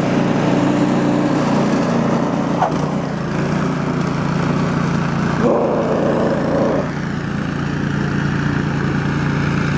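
A small petrol engine running steadily at an even speed, with a brief higher tone over it about five and a half seconds in.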